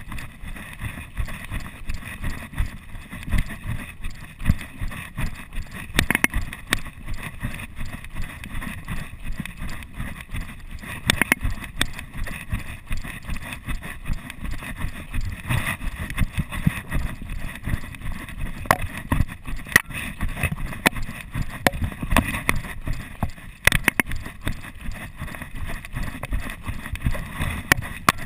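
Footfalls on a dirt trail in a quick, steady rhythm, heard as dull thuds through a chest-mounted GoPro Hero 2 that jolts with each step.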